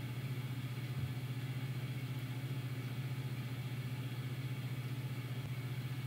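A steady low hum, even and unbroken, with no other events.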